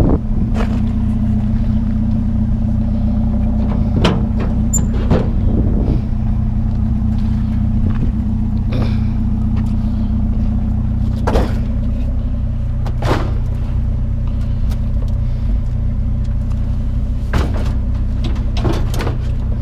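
A vehicle engine idling steadily, with a dozen or so scattered knocks and clanks as an old bicycle is loaded in.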